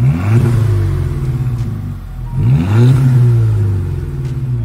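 VW Scirocco's four-cylinder petrol engine revved twice, once at the start and again about two and a half seconds in, each time rising in pitch and falling back towards idle. The engine is misfiring, with low combustion on cylinder 3 that the AA technician put down to a failed coil pack.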